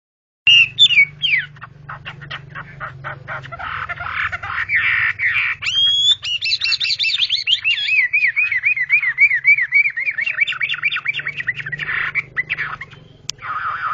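Chinese hwamei (họa mi) singing a loud, varied song: fast whistled glides and trills, then a long run of quick repeated rising-and-falling whistled notes, several a second. A single sharp click comes near the end.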